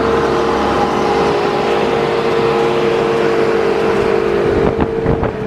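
Diesel engine of a skid-steer loader running steadily at a constant speed, with a few knocks near the end.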